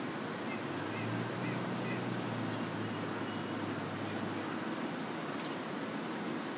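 Steady outdoor background noise. A low hum runs through the first few seconds, with a few faint, short high chirps early on.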